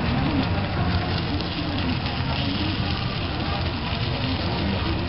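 Takoyaki batter and tempura bits sizzling and crackling on a hot takoyaki griddle while the balls are turned with picks, over a steady low background rumble.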